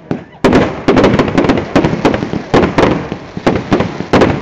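A string of firecrackers going off in rapid, irregular bangs, suddenly much louder about half a second in.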